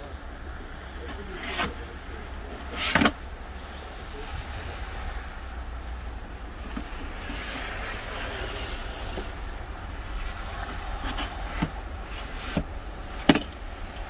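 Snow shovel scraping and knocking on snow-covered steps: a few sharp scrapes, the loudest about three seconds in and several more close together near the end, over a steady low rumble.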